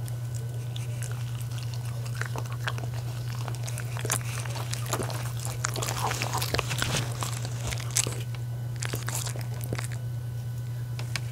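A miniature schnauzer and a West Highland white terrier chewing and biting pieces of soft cooked dog-food donut, with many quick wet clicks and smacks that come thickest in the middle and stop shortly before the end. A steady low hum runs underneath.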